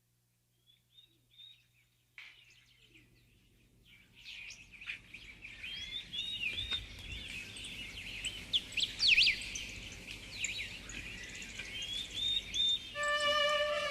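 Several birds chirping and calling: a few scattered chirps at first, then a busy chorus of short, overlapping calls from about four seconds in, over a faint low rumble. Music comes in near the end.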